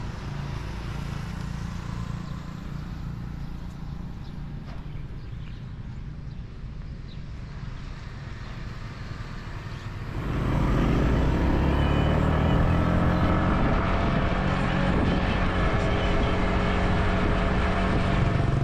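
Street traffic with motor vehicle engines running, a steady low hum. About ten seconds in it gets louder and busier.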